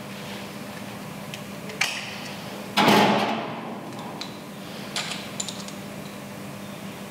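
Hands working a rubber gas hose and its metal fitting and hose clamp: a few small sharp clicks, and one louder brief scraping noise about three seconds in that fades out, over a steady low hum.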